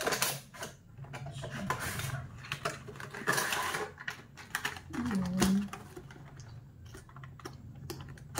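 Cardboard box and packaging being handled: a run of small clicks, taps and rustles as a hair-dye box is opened and turned over. A brief low voice sound comes about five seconds in.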